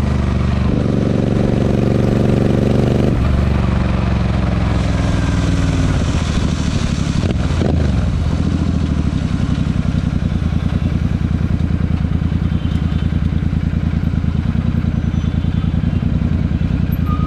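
Royal Enfield 650 parallel-twin engine running through a Barrel Atom aftermarket exhaust. It is held at raised revs for a couple of seconds, drops back, and settles into an even, pulsing idle from about halfway in.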